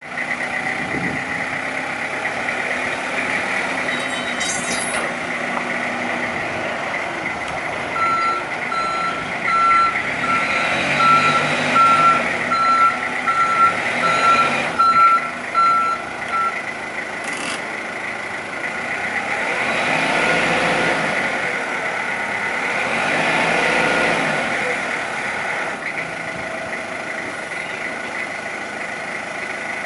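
Yale diesel forklift engine running, with its reversing alarm beeping steadily for about eight seconds near the middle. Later the engine revs up twice as the hydraulic mast raises and tilts the forks.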